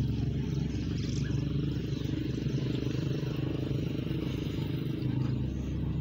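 A motor engine running steadily with a low, even hum.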